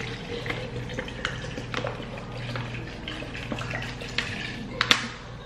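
Kitchen work sounds with a watery sound, scattered small clicks and knocks, and two sharper knocks near the end, over a low steady hum, as watermelon is readied in a blender jar for agua fresca.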